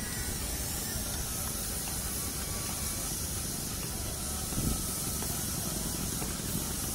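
Steady steam hiss from a miniature steam traction engine standing in steam, over a low, even rumble.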